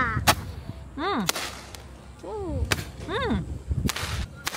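Small fireworks going off in a series of sharp bangs, about five in under five seconds, with short rising-and-falling cries of 'wow' between them.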